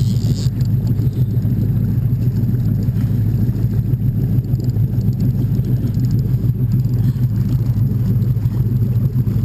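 Boat engine running steadily, heard as a low, even rumble through the boat, with a brief hiss at the very start.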